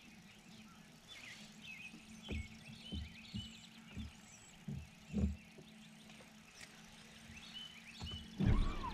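Small birds chirping faintly over a steady low hum, with a handful of soft knocks on the boat deck. A louder sudden thump comes near the end.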